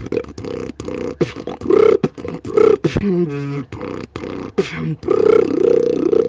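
Live beatboxing: a fast run of sharp mouth clicks over pitched vocal bass tones that bend up and down, with a tone that falls in steps about three seconds in.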